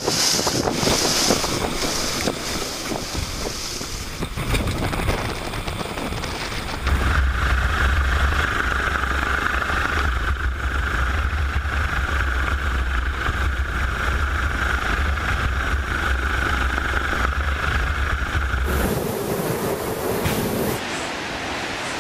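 Storm wind and sea noise, with wind buffeting the microphone. From about seven seconds in, a steady deep rumble with a higher steady hum runs until near the end, where it gives way to the wash of big waves breaking.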